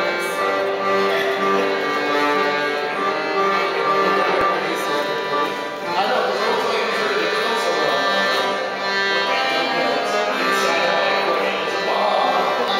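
An accordion playing a tune of sustained, held chords and notes, with the notes changing every second or so.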